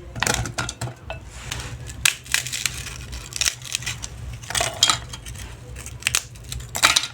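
Metal utensil clicking and scraping against a dish as food is crushed and mixed, a run of irregular sharp taps and scrapes over a steady low hum.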